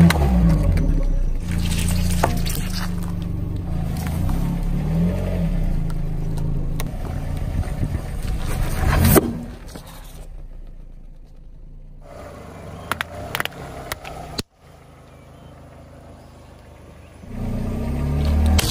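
Car tyre rolling slowly over plastic toys on asphalt, with a low engine and tyre rumble; plastic cracks under the wheel at the start and there is a sharp crunch about nine seconds in. A quieter stretch with a few clicks follows, and the low rumble comes back near the end.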